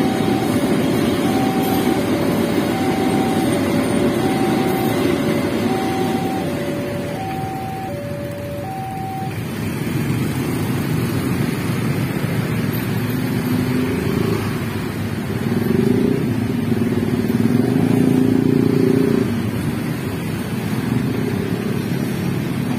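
Level-crossing warning alarm sounding two alternating tones, high then low, over the low rumble of a container freight train passing. The alarm stops about nine seconds in, and then motorcycle and car engines rev as the waiting traffic pulls across the tracks.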